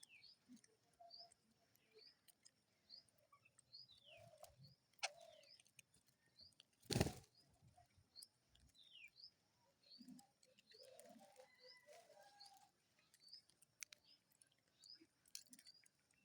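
Small birds chirping faintly, a short high falling note repeated about twice a second, with one sudden loud thump about seven seconds in.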